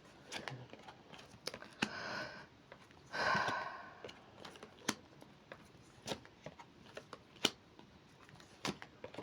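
Tarot cards being handled on a table: two short sliding swishes, then a scattering of sharp light taps and clicks.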